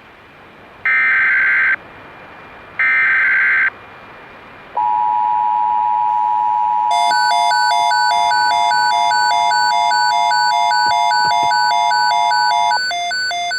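Emergency Alert System SAME header: short bursts of warbling digital data tones, then the steady two-tone EAS attention signal held for about eight seconds, which marks the start of an emergency alert broadcast. From about seven seconds in, a pulsing alarm beep, about two and a half a second, sounds over the attention tone and keeps going after it stops.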